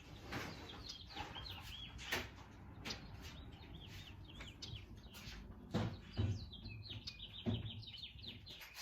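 Birds chirping: two runs of quick, high chirps, one about a second in and one past six seconds, with scattered soft knocks and thumps.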